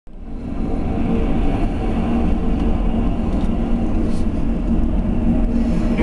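Steady low rumble from a blast furnace blowing out, venting and burning gas at its top.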